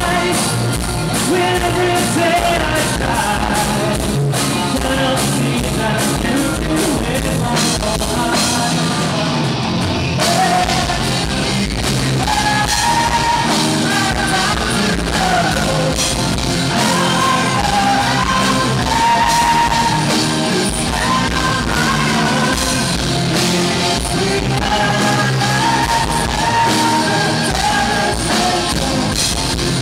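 A rock band playing live, with a vocalist singing and at times shouting over loud drums and cymbals and the full band.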